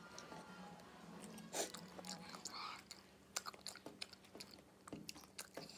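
Close-miked chewing and biting of food, with many sharp wet mouth clicks and crunches. A louder crunch comes about a second and a half in.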